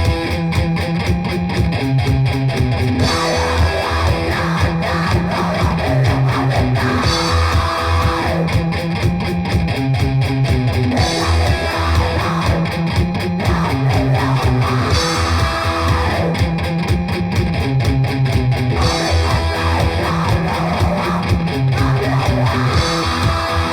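Grindcore music: distorted electric guitar riffing over bass and drums in a loud, dense, repeating pattern.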